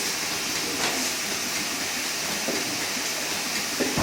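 Steady hiss of warm water spraying from a wash hose as cows' teats are washed before milking.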